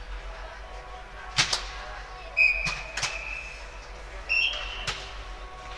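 Sharp slaps of a volleyball being hit, four times, with two short referee whistle blasts, the first about two and a half seconds in and the second a couple of seconds later.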